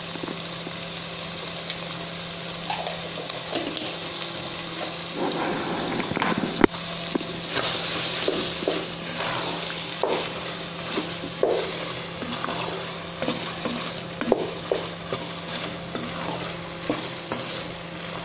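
A spatula stirring chopped chicken intestines in a stainless steel pot, with irregular scrapes and soft knocks against the pot and one sharp knock about a third of the way in, over a faint sizzle and a steady low hum.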